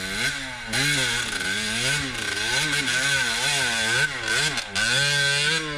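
Dirt bike engine revved up and down over and over, about twice a second, with the revs held higher near the end: the rider working the throttle to push the bike through deep, sucking mud.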